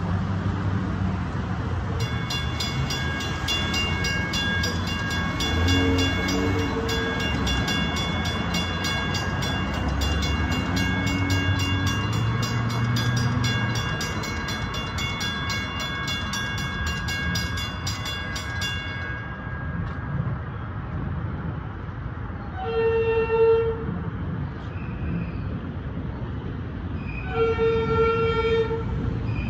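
Railroad grade-crossing warning bell ringing in a fast, steady rhythm while the gates lower; it stops about two-thirds of the way through. Then an approaching train's horn sounds twice, a short blast followed by a longer one near the end, over a low rumble of road traffic.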